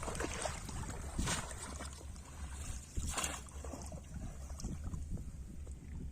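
River water splashing and sloshing in several surges, the strongest about one and three seconds in, over a steady low rumble.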